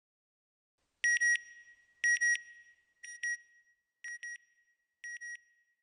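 Electronic beep sound effect: a high double beep repeating about once a second, five times, each pair fainter than the one before.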